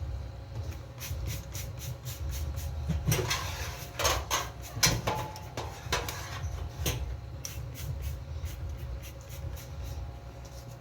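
Kitchen cleaning and handling sounds: a steady run of small knocks and clicks, with a louder stretch of clatter and scraping a few seconds in, over a steady low hum.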